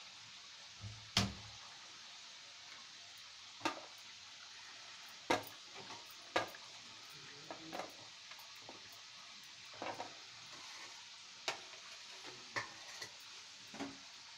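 Kachoris deep-frying in hot oil in an aluminium kadhai: a steady sizzle with sharp pops now and then. The loudest is a thump about a second in.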